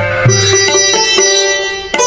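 Music of repeated plucked string notes with a bright, ringing, sitar-like tone. It dips in level near the end and is cut by a sharp click.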